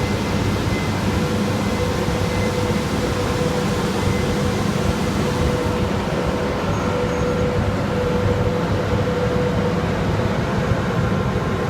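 Train running noise: a steady rumble with a thin, even whine above it, unbroken throughout.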